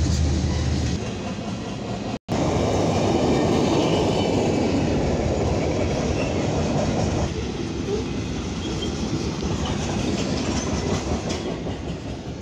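Freight train cars rolling past with a steady rumble and wheels clacking over the rail joints. For about the first second, a CN GE ES44DC diesel locomotive running mid-train as a distributed power unit drones low as it passes. The sound drops out for an instant about two seconds in.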